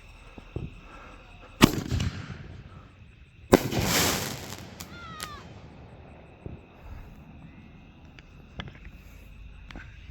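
Two fireworks bangs about two seconds apart, the second followed by about a second of crackling hiss, then a few fainter pops.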